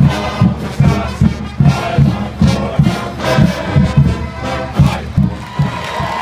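Stadium band music with a steady drum beat and brass, with a large crowd shouting along.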